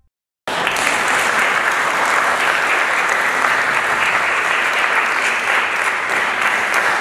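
Audience applauding, steady and dense, starting abruptly about half a second in.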